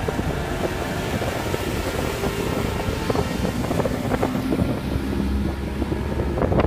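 Bass boat under way on its motor, with a steady low rumble and wind buffeting the microphone in irregular gusts.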